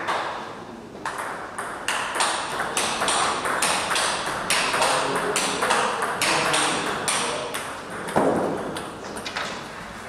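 Table tennis rally: the ball clicking sharply off the rackets and the table in quick alternation, a few hits a second for about six seconds, then stopping. A short loud burst of noise follows about eight seconds in.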